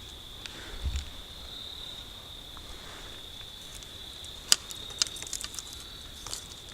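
Crickets trilling steadily at one high pitch, with a sharp click about four and a half seconds in and a few lighter ticks after it.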